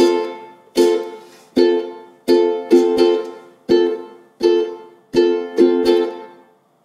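Resonator ukulele strummed in a steady rhythm of chords, each chord stopped short by the right hand turning onto the strings to give a staccato, damped sound. About a dozen strums, ending about six and a half seconds in.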